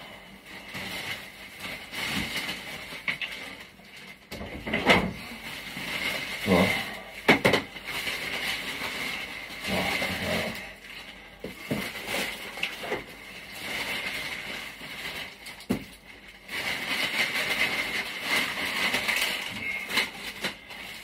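Handling noises in a small kitchen: irregular knocks, clicks and rustling as someone moves things about.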